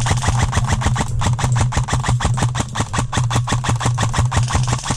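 Airsoft electric gun (AEG) firing a long full-auto burst: rapid even clicks, about ten a second, over the steady hum of the gearbox motor.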